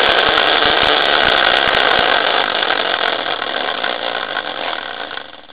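Homemade prize wheel spinning fast, its pointer flap rattling against the logo-covered rim in a steady whirring buzz. The buzz fades gradually near the end and stops as the wheel comes to rest.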